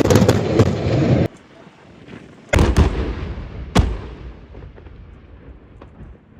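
Artillery live fire: a loud rumble cut off abruptly about a second in, then two heavy gun reports a little over a second apart, each trailing a long rumbling echo that fades away.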